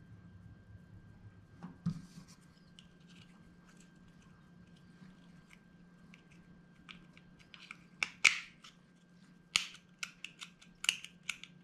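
Small plastic and metal parts of a Porsche 944 power seat switch being handled and pressed together by hand: one knock about two seconds in, then a quick run of sharp clicks and taps in the second half as the switch housing is fitted over its ball bearings.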